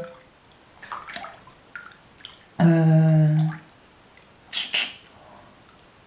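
A woman's voice holding a drawn-out hesitation sound, an "uhh", for about a second in the middle, with a few soft mouth clicks before it and a short breathy hiss after it.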